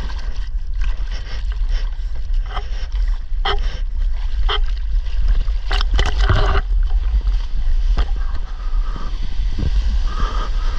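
Seawater splashing and sloshing over the nose of a surfboard that carries the camera, with a heavy low rumble of water and wind buffeting the microphone. A few sharp splashes come about a second apart in the middle, the biggest about six seconds in.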